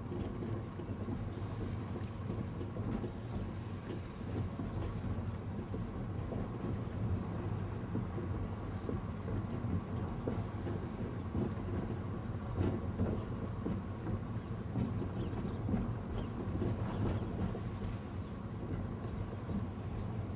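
Car driving along: steady, low engine and road noise heard from inside the cabin.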